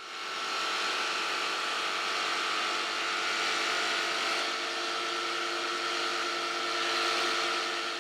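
Table jigsaw running steadily as it cuts traced letters out of plywood, a steady whine over a buzzing hiss. It fades in at the start and fades away at the end.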